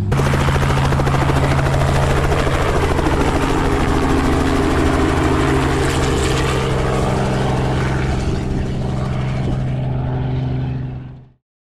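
Light helicopter flying low overhead, its rotor beating steadily over the engine's steady drone. It grows fainter as it moves away, and the sound fades out near the end.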